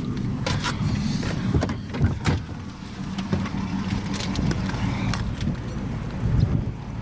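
Vehicle engine running at idle, a steady low hum, with scattered clicks and knocks over it, the loudest about two seconds in.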